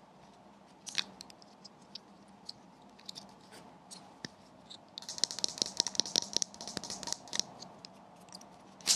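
Small white plastic power adapter handled and clicked: scattered light taps, a click about a second in, then a dense run of quick taps and scratches on the plastic casing for two or three seconds in the middle, as its fold-out prongs are flipped out and folded back, and a sharp click near the end.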